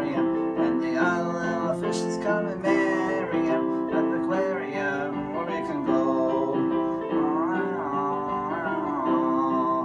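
An electronic keyboard plays steady chords under a man singing a children's song.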